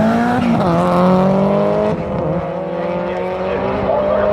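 Drag racing vehicle's engine under full throttle on a run down the strip, its pitch climbing steadily, with a quick dip about half a second in as it changes gear, then climbing again.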